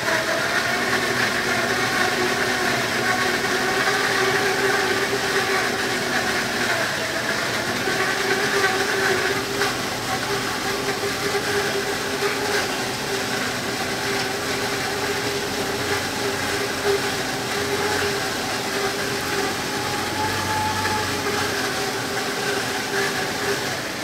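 Condensing gas furnace's draft inducer motor and circulating blower running steadily with the burner off, the inducer shutting off near the end. The furnace is cycling the inducer on and off without relighting, a fault the uploader tags as a blocked condensate drain.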